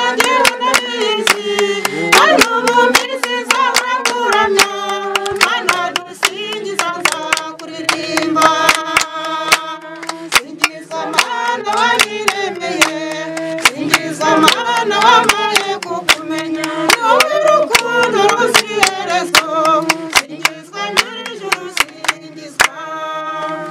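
A group of voices singing together, with hand clapping keeping a steady beat of about two claps a second.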